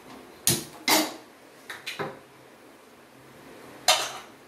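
A few sharp knocks and clanks as a non-stick kadai is set down and shifted on a gas stove's metal burner grate, mostly in the first two seconds, with one more sharp click near the end.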